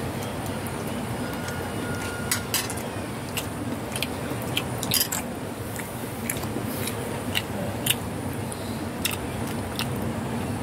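Cats chewing a fried cassava snack (jalabia), with about a dozen irregular sharp crunches over a steady background noise.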